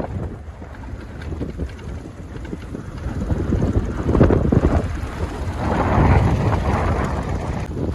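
Wind buffeting the microphone of a rider on a moving motorcycle, a heavy low rumble that swells in gusts about four and six seconds in.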